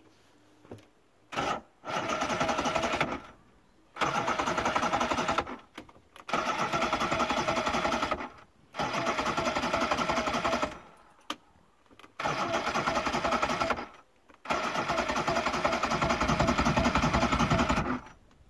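Johnson V4 two-stroke outboard being cranked by its electric starter: a quick blip, then six cranking bursts of one to three seconds with short pauses, the last the longest. The engine turns over but never catches; it will not start.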